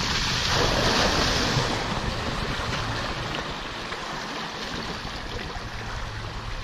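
Water rushing and splashing against a rowing boat's hull and oar blades as the crew rows hard, with wind noise on the microphone. It is loudest in the first two seconds, then settles to a steady wash.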